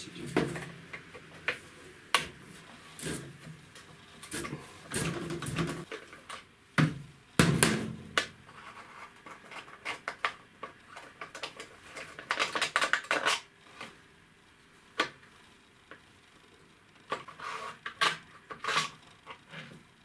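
Metal clicks, knocks and scrapes of a crank wrench with a 10 mm socket working two long bolts loose on an outboard motor's carburettor assembly, coming in irregular clusters with a quieter pause a little after halfway.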